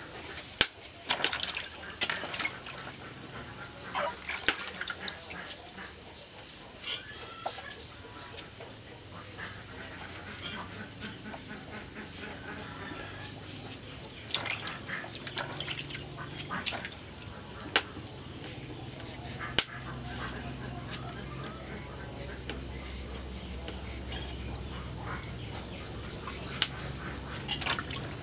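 A kitchen knife peeling and trimming cucumbers over a plastic basin of water: irregular sharp clicks and scrapes of the blade, with water splashing and dripping as the vegetables are handled.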